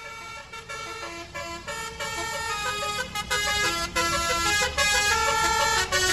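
Indonesian 'telolet' musical bus horn playing a tune of stepping notes, growing steadily louder, over the low rumble of the bus.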